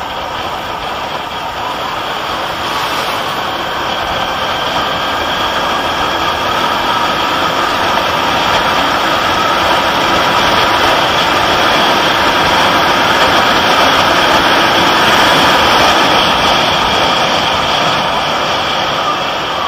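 Motorcycle riding at road speed: its engine and rushing wind noise grow steadily louder as it accelerates, then ease off near the end.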